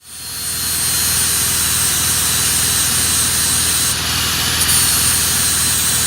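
A machine running steadily: a loud hissing rush with a faint high whine and a low hum, starting abruptly.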